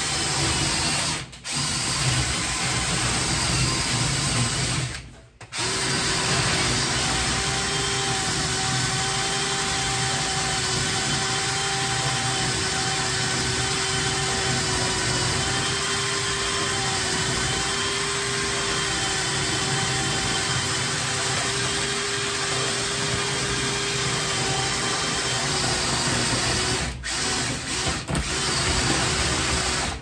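Cordless drill spinning a flexible rod and rotary brush through a long dryer vent duct, clearing built-up lint. It runs steadily with a held, slightly wavering whine, stops briefly about a second in and again about five seconds in, and stops and restarts a few times near the end.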